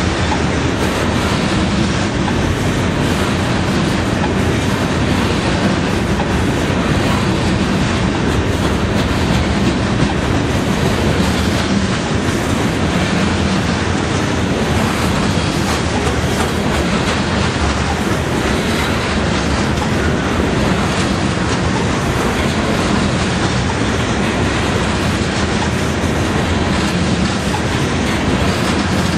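Loaded coal train's steel-wheeled hopper cars rolling past at close range: a loud, steady rumble of wheels on rail with a running clickety-clack of the wheels over the rail joints.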